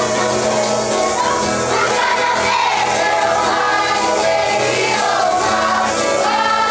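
A children's kapa haka group singing a waiata together, with guitar accompaniment, amplified through the stage speakers.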